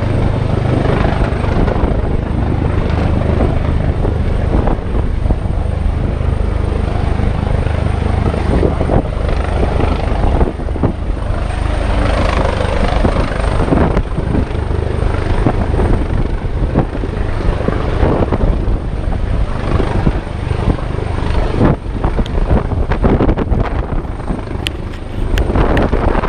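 Helicopter running close by: a loud, steady rotor and engine drone.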